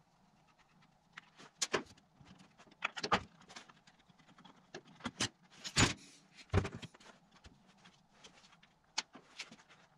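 Scattered clicks and knocks of hand work on a Stihl FS55 string trimmer being taken apart: a screwdriver turning out screws and the plastic starter housing being worked loose, the loudest knocks about the middle, over a faint steady hum.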